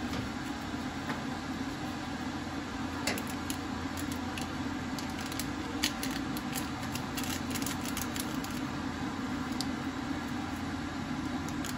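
Plastic Samyang ramen seasoning packet being torn and squeezed, crinkling in a scatter of sharp crackles that bunch up between about three and nine seconds in. Under it runs a steady low hum.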